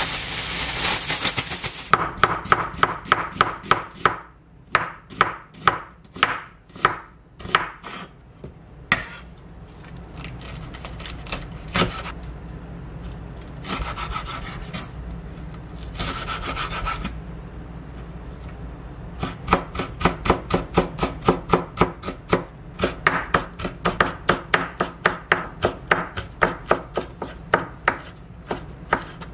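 Plastic cling wrap crinkling briefly at the start, then a knife chopping a green chili pepper on a wooden cutting board in quick runs of strokes, about four a second, with a sparser stretch in the middle.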